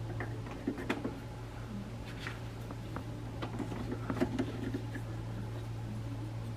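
Faint small taps and rubbing as parts of a wooden squirrel call are handled on a metal lathe mandrel, over a steady low hum.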